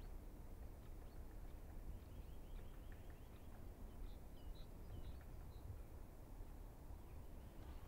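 Faint high bird calls: short chirps scattered through, with a quick trill about two seconds in, over a steady low rumble.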